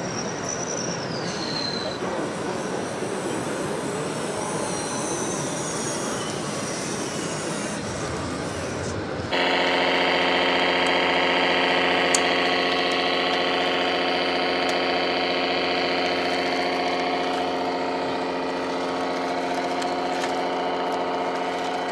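Radio-controlled model tractor running at a steady pace: from about nine seconds in, a loud, even engine-like drone with many evenly spaced overtones. Before that there is a mixed noisy din with a faint whine that falls in pitch.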